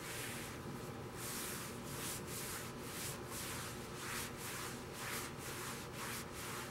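A cloth wet with Windex being rubbed over the inside of a steel smoker lid in repeated wiping strokes.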